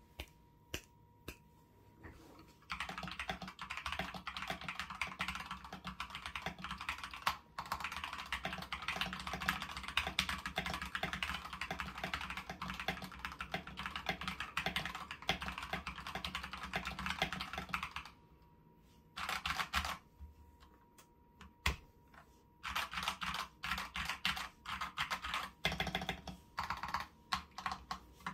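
Typing on a stock, unmodded Gamakay LK67 mechanical keyboard with linear Gateron Red switches and its stock XDA-profile keycaps. Long runs of fast keystrokes give way to a pause with a few single key presses about 18 seconds in, followed by shorter bursts of typing.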